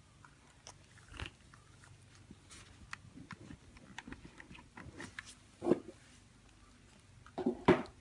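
Kittens eating wet food: many small, irregular wet chewing and smacking clicks, with a few louder short sounds about five and a half and seven and a half seconds in.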